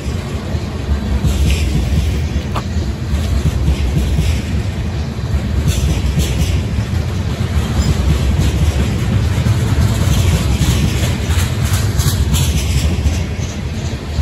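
Freight train tank cars rolling past close by: a steady low rumble of steel wheels on the rails, with scattered clicks and clanks along the way.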